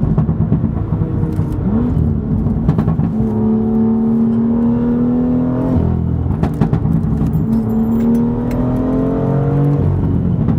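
BMW M2's turbocharged straight-six under hard acceleration, its note climbing slowly through each gear and dropping at upshifts, one just under 6 s in and another near the end. A few sharp cracks ride over it.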